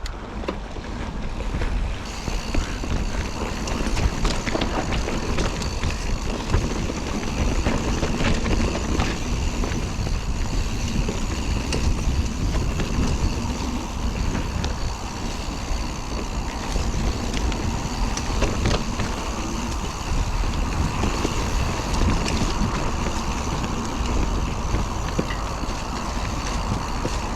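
Mountain bike being ridden along a dirt trail, heard from the rider's camera: steady wind rumble on the microphone, tyres running over the ground, and frequent clicks and rattles from the bike over bumps.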